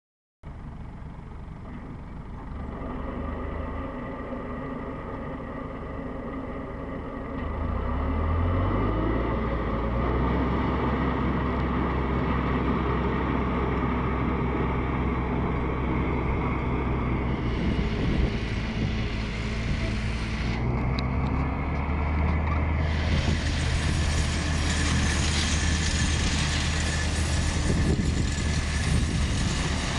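John Deere tractor's diesel engine driving a Seppi M flail mulcher through dry grass and weeds. The engine note rises and grows louder about eight seconds in, then runs steadily under load. A broad hiss of chopping grows strong near the end.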